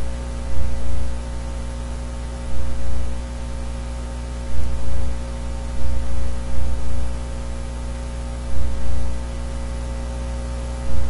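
Steady electrical mains hum with a constant hiss, carrying several fixed tones. Soft low thumps come and go irregularly every second or two.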